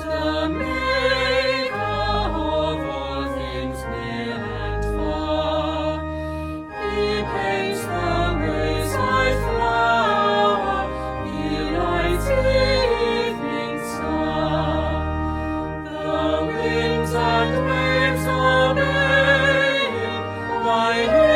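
Choir singing a sacred piece, several voices with vibrato over long held low accompanying notes.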